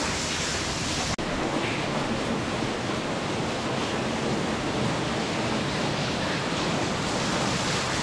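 Underground waterfall in a limestone cave, water plunging straight down with a steady, even rush. The sound cuts out for an instant about a second in.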